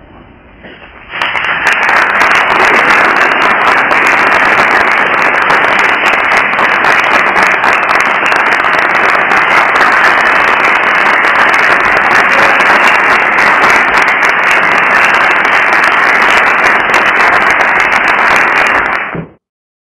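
Audience applauding: loud, dense clapping that starts about a second in, holds steady and cuts off abruptly near the end.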